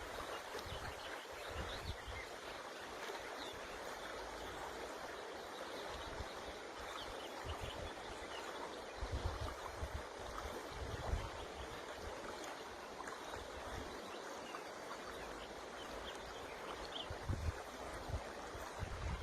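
River water rushing steadily, with occasional low gusts of wind on the microphone.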